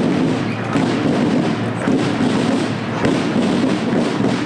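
Street noise of a marching parade: a dense, steady rumble with dull thumps about once a second.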